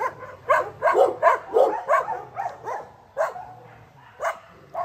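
Dogs in shelter kennels barking: quick barks about three a second for the first two seconds, then a few spaced-out barks.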